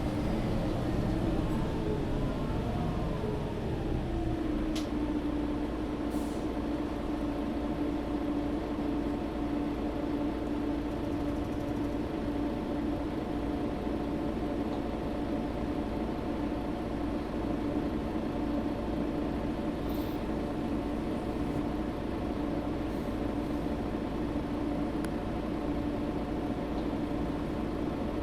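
Inside a Mercedes-Benz Citaro G articulated bus: a drivetrain whine falls in pitch over the first few seconds as the bus slows. It then settles into a steady engine hum at one pitch, with a few faint clicks.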